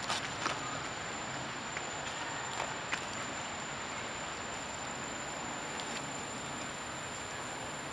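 Steady outdoor hiss with a thin, constant high-pitched tone, and a few faint clicks and rustles in the first three seconds as monkeys move about on dry leaf litter.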